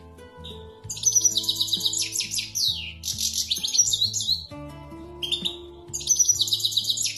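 European goldfinch singing in fast twittering phrases of high notes, with one long run from about a second in and another starting near the end. Faint music sits underneath.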